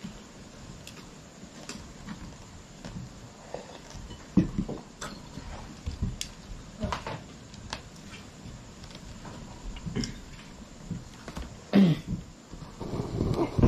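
Meal sounds in a small room: scattered light clicks, taps and soft knocks of hands, plate and dishes being handled while eating, with two louder knocks about four and twelve seconds in, and a louder stretch of noise near the end.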